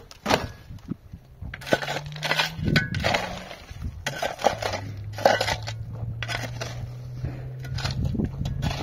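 Repeated hard knocks and scraping clatter, about a dozen irregular impacts, over a steady low hum that starts about a second in.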